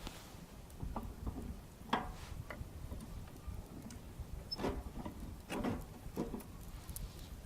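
Wood bonfire crackling: a few scattered snaps and pops over a steady low rumble.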